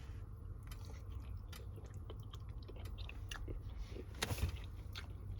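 A person eating a linguine dinner: chewing, with scattered small clicks and taps, the loudest about four seconds in, over a steady low hum.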